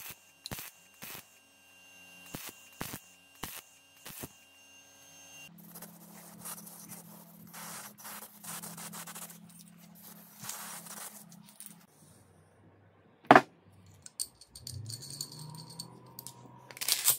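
Short bursts of MIG welding arc crackle, roughly two a second, as a steel tube bracket is tack-welded. After about five seconds it gives way to a hissing spray with a low hum as the bracket is spray-painted, then a sharp click and small metal clinks of bolts and nuts being handled.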